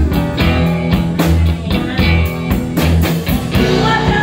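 Live blues band playing an instrumental passage: electric lead guitar, cigar box guitar, electric bass and drum kit, with the drums keeping a steady beat. There are bent guitar notes near the end.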